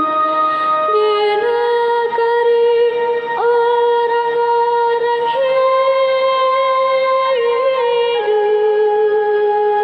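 A teenage girl singing a responsorial psalm solo, holding long notes, with a quick upward slide into a higher note about three and a half seconds in.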